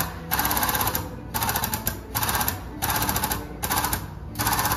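Pneumatic air hammer rapping in short bursts, about six in all, each about half a second long with a pause between. It is working the dented metal back into place while a frame-machine chain holds the panel under pull.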